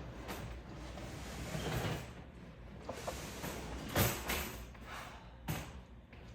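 Handling noises: rustling with several knocks. The sharpest knock comes about four seconds in and another about a second and a half later.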